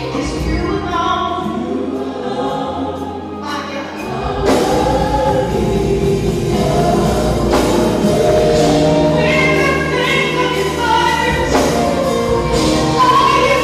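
Gospel choir singing over instrumental accompaniment. The music grows fuller and louder about four and a half seconds in.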